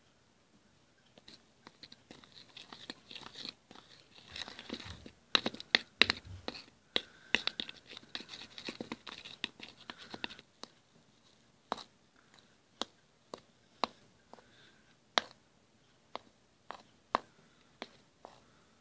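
Metal knife stirring a wet flour-and-cocoa batter in a small plastic bowl: busy scraping and clicking against the bowl, then, about halfway through, separate sharp taps roughly once a second.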